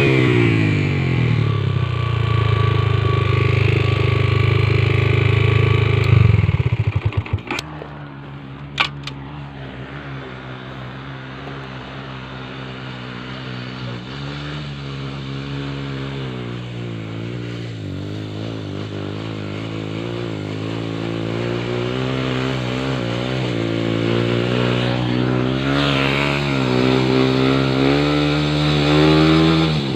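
Motorcycle engine running: held high and steady, then dropping off with a stutter about seven seconds in and a couple of sharp clicks, then running lower and slowly rising in pitch and loudness.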